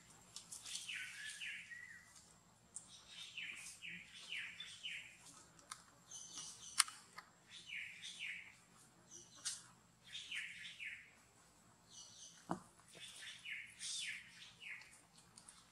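Newborn macaque crying in short, high squeaks that come in bursts of three or four every couple of seconds. A sharp click sounds about seven seconds in.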